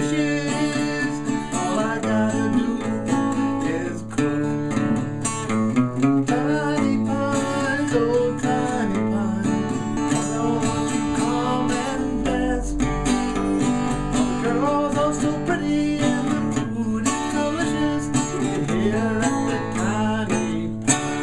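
Solo acoustic guitar being played, picked and strummed chords over steady bass notes.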